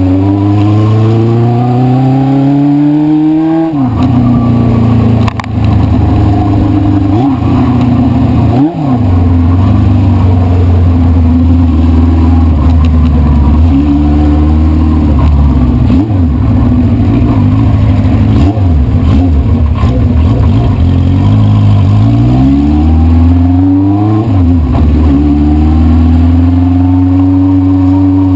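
A 1973 Honda CB500 Four's inline four-cylinder engine under way, revving up through a gear and shifting up about four seconds in. It then holds a steady speed with a few brief dips in the revs, and pulls up through the revs again with another shift near the end.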